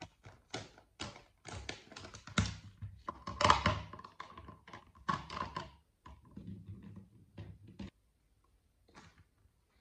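Plastic highlighter pens and their clear plastic case being handled: a busy run of clicks, clacks and rattles as the pens knock together and are slotted into a plastic pen holder, thinning out to a few light taps, with one faint tap near the end.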